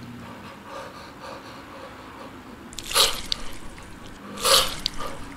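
A man's two sharp, breathy shouts, kiai-style, about a second and a half apart.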